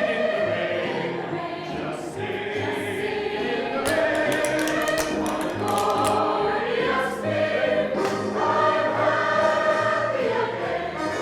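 A chorus of voices singing a show tune together, with long held notes.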